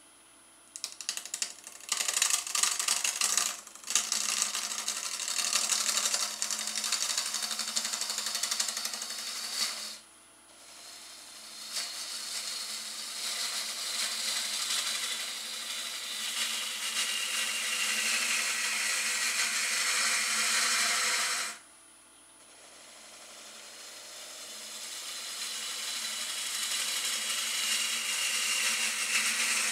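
Bowl gouge cutting the face of an end-grain cherry bowl blank spinning on a wood lathe: a loud, rushing, scraping hiss in several long passes, broken by short pauses about ten and twenty-two seconds in. A faint whistling tone in the cut slowly falls in pitch, over the steady hum of the lathe.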